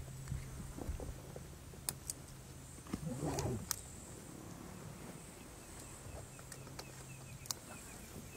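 A lion's short call about three seconds in, its pitch bending up and down, over a steady low hum and a few faint clicks.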